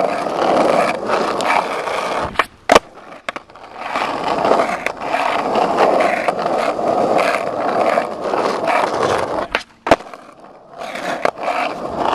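Skateboard wheels rolling on rough pavement, broken twice by a short lull with a loud, sharp clack of the board, about three seconds in and about ten seconds in, as kickflips are tried.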